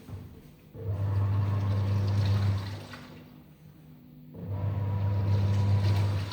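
Hitachi 8 kg top-load washing machine agitating a wash load. Its motor hums with swishing water for about two seconds at a time, with about two-second pauses in between: the back-and-forth rhythm of a wash cycle.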